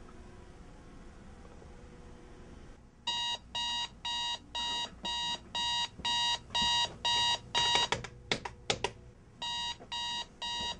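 Electronic alarm clock beeping, about two beeps a second, starting about three seconds in. Near the end a few sharp knocks come and the beeping stops briefly, then starts again.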